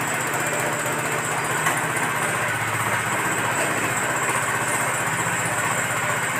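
Horizontal livestock-feed mixer running steadily, its electric motor and gearbox turning the mixing shaft while mixed feed is let out of the side outlet into a sack. The machine sound is an even, fast pulsing hum.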